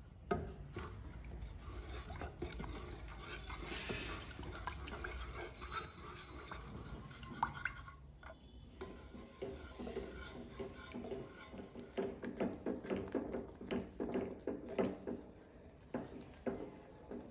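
Wooden spatula stirring and scraping milk and corn flour in a saucepan, the flat blade rubbing the bottom and sides of the pan. After a short break about eight seconds in, the stirring turns into quicker, regular strokes.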